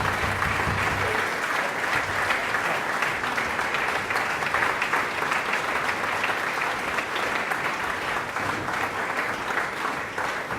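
Audience applauding: a dense, steady clatter of many hands clapping that eases off slightly near the end.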